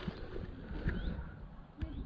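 Wind buffeting the microphone and rolling noise during a bicycle ride, an uneven low rumble, with a few faint high chirps.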